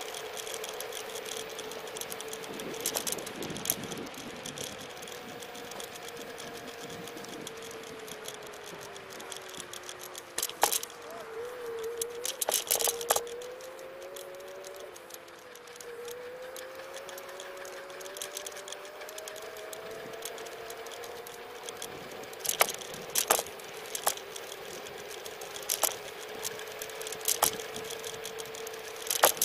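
Xplorer Ambassador electric scooter riding along, its motor whining in a steady tone with a second whine that slowly rises and falls with speed. The scooter rattles sharply over bumps several times, most around the middle and near the end.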